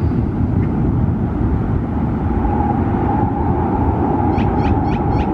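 Steady low vehicle rumble. A faint held tone comes in about halfway, and near the end a run of short high chirps comes about three a second.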